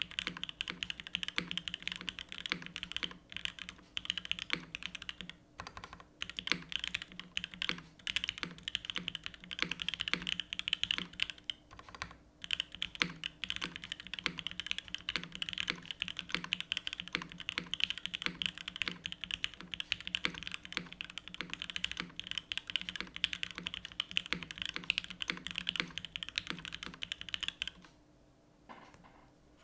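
TGR x GAF 910 PC mechanical keyboard being typed on quickly: a dense run of keystrokes from lubed Gateron Ink Black v2 linear switches in a top-mounted aluminium plate with GMK keycaps. The typing pauses briefly about 5 and 12 seconds in and stops a couple of seconds before the end.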